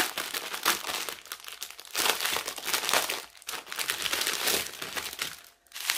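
Clear plastic bag crinkling as hands unwrap it from a strip of bagged diamond-painting drills, in irregular bursts with short lulls near the middle and about a second before the end.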